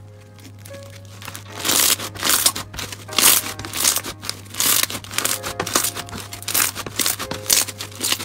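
Clear slime packed with blue beads being squeezed and kneaded by hand, giving loud crunchy crackles roughly once or twice a second from about a second and a half in.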